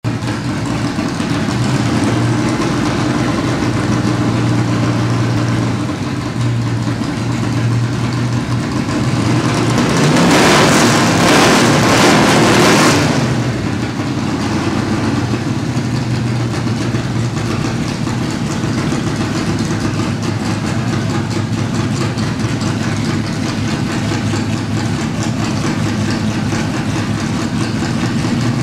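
Ford Maverick's engine running at idle with a steady rumble. About ten seconds in it is revved up for roughly three seconds, then drops back to idle.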